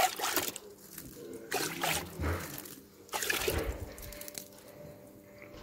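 Water poured from a plastic basin splashing onto freshly sown garden soil to water it, in three surges about a second and a half apart, tailing off near the end.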